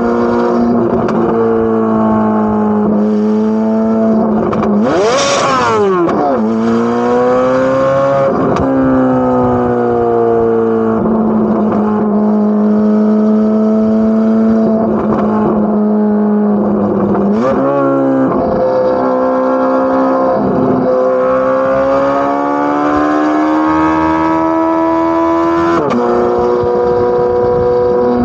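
Corvette C8 Z06's naturally aspirated flat-plane-crank V8 running at a steady, high-pitched cruise. About five seconds in the pitch climbs sharply and drops back, and there are briefer dips and recoveries in pitch around the middle and near the end.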